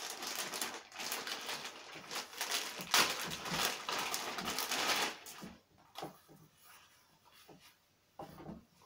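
Clear plastic bag crinkling and crackling as it is opened and the overshoes are pulled out of it. About five and a half seconds in, the crinkling stops and only softer rustling of the overshoes being handled remains.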